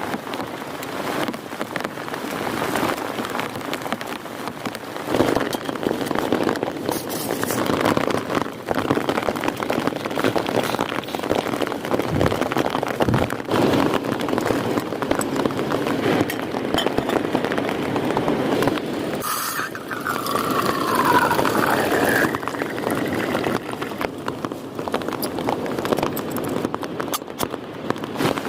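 Heavy rain falling steadily, with dense pattering impacts. About two-thirds of the way through, a short whistle-like tone falls in pitch.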